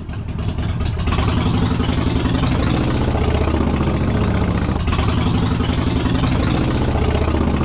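Harley-Davidson Sportster's air-cooled V-twin, bored out to 1275 cc with a Hammer big-bore kit, idling steadily. The engine is freshly rebuilt, in its break-in heat cycles, and not yet auto-tuned. About a second in, the idle grows a little louder.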